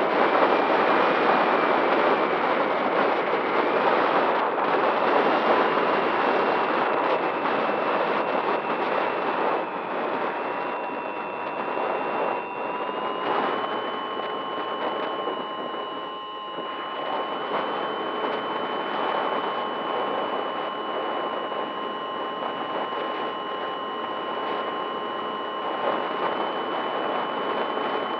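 A model aircraft's motor and propeller whining steadily under heavy wind rush on the aircraft's onboard camera microphone; the whine steps up slightly in pitch about halfway through.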